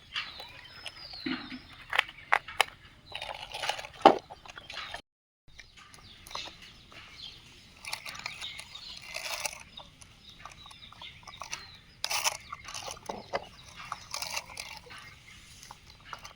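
Small rocks clattering and scraping against plastic toy construction machines, with irregular sharp knocks of stone on plastic.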